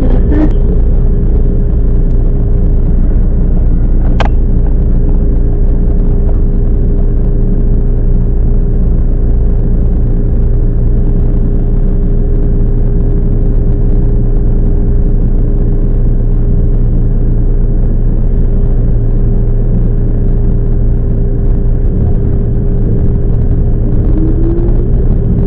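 Toyama Chiho Railway 10030 series electric train running on the track, heard from inside the car: a steady low rumble with a constant motor whine. There is a single sharp click about four seconds in, and a rising tone near the end.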